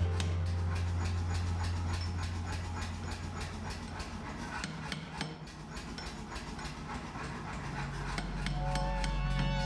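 Steel drift being driven by rapid, evenly spaced hammer blows to punch the eye through a red-hot hammer head, under a steady low hum.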